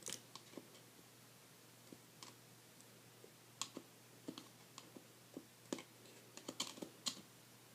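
Faint, irregular small clicks and taps of a small screwdriver working at the iPhone 3G's ribbon cable connectors, prying them up off their sockets.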